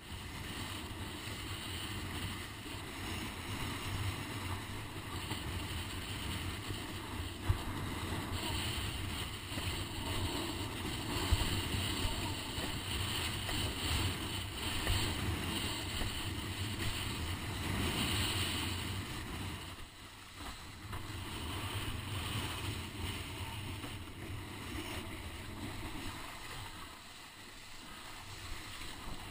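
Strong wind buffeting the microphone of a GoPro on a planing windsurfer, over the rush and hiss of water under the board. Two sharp knocks come a few seconds apart in the first half, and the wind eases briefly twice later on.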